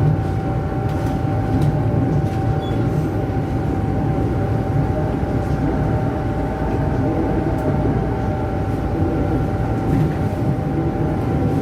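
Tokyu 8500-series electric commuter train running at a steady pace, heard from the driver's cab: a constant rumble of wheels on rail with a steady motor hum and a few faint clicks.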